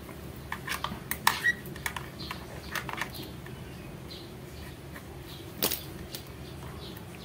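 Hands working a twin power cord and its white plastic plug, pulling the cord's two wires apart: scattered light clicks and taps, several in the first three seconds and one more a little after the middle.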